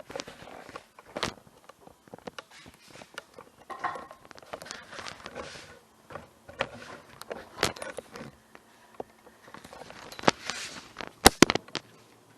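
Cut wooden boards being handled and laid out: irregular knocks, clatters and scrapes of wood, with two sharp clacks close together near the end.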